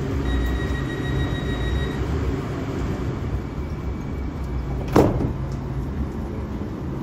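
LA Metro P3010 light-rail car standing at the platform with a steady low hum. A steady high warning tone sounds for about two seconds. About five seconds in, the doors shut with a sharp bang.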